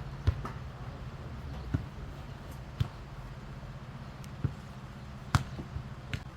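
A jokgu ball being kicked and bouncing on the court: about six sharp thumps at irregular intervals, the loudest about five seconds in, over a steady low hum.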